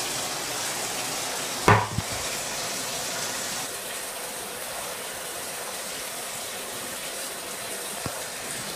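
Steady hiss of running tap water in a bathtub, with one sharp knock about two seconds in as the phone is handled, and a faint click near the end.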